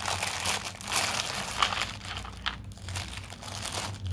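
Clear plastic packaging bag crinkling as it is handled and pulled off a plastic toy, dense at first and thinning to a few separate rustles in the second half.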